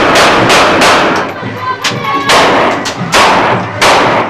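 Gunfire: about eight loud shots in quick, irregular succession, each followed by a ringing echo.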